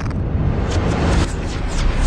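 Electronic dance-style intro music in a noisy build, with a low beat and a hissing swell near the end.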